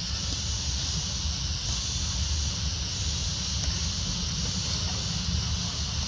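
Steady outdoor background noise: an even high hiss over a low rumble, with no distinct events.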